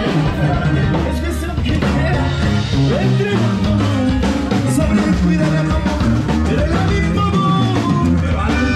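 Live Mexican regional band playing: sousaphone bass line under accordion and drum kit, with a singer.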